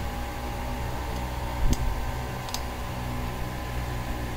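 A few small clicks and a soft knock from a Voopo Vinci pod vape's casing being prised apart with a small tool, over a steady background hum.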